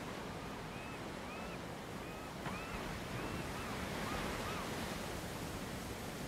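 Sea surf washing steadily against the shore, with a bird giving a run of about nine short, arched calls over the first four and a half seconds.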